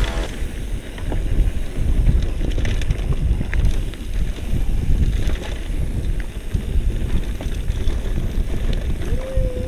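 Wind buffeting the microphone over the rattle and clatter of a bicycle being ridden over a rough trail.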